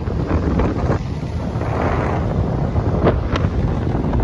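Wind buffeting the microphone on a speedboat running fast, over the rush of the engine and of water along the hull. There are two short, sharp knocks about three seconds in.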